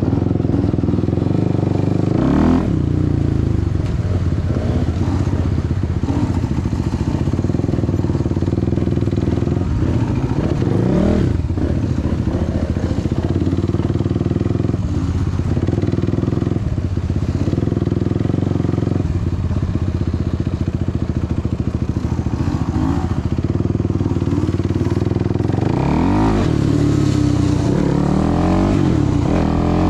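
Suzuki LTR 450 quad's single-cylinder four-stroke engine running steadily at cruising revs, briefly revving up a couple of times. Near the end the revs rise and fall several times as it accelerates.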